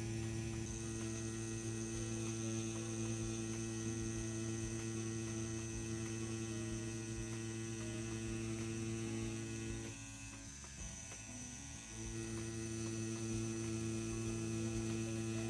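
CNC P6 rotary tattoo pen motor running with a steady hum while lining, at a low 8-volt setting near the bottom of its 7 to 11 volt range. The hum drops away for about two seconds around ten seconds in, then resumes.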